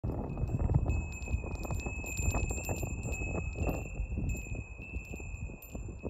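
Small copper-alloy bells of a wind chime ringing as they swing, many quick light strikes over a held high ring, busiest in the first few seconds. An uneven low rumble runs underneath.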